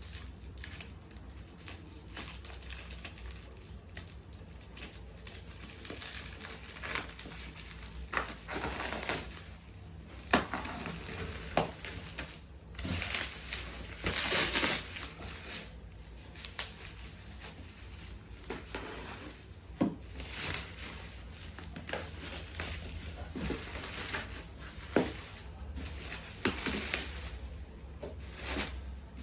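Packaging being handled and opened: cardboard and plastic wrapping rustling and crinkling, with scattered knocks and clicks, over a steady low hum.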